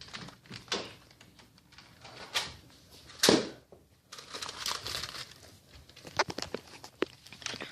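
Rustling and handling noises with scattered clicks and knocks; one louder knock comes a little after three seconds in.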